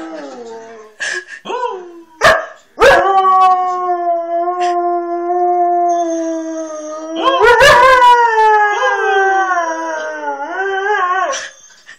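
Husky howling: a few short yelps, then one long, steady howl, then a second howl that rises sharply, wavers and slides down in pitch, breaking off near the end.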